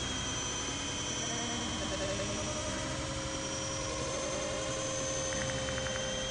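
Radio-controlled model jet flying overhead, its motor giving a steady high-pitched whine.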